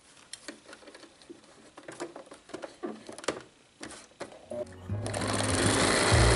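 Small clicks and rustles of fabric and pins being handled at a domestic sewing machine. About five seconds in, the machine starts stitching through denim and runs steadily, with background music coming in under it.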